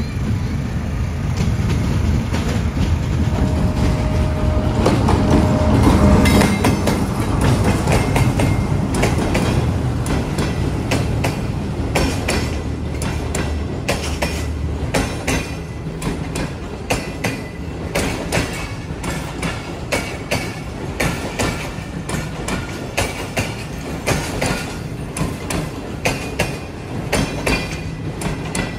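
Express passenger train passing close by. The low rumble of the diesel locomotive is loudest about six seconds in and then fades, while the coaches' wheels keep up a steady clickety-clack over the rail joints.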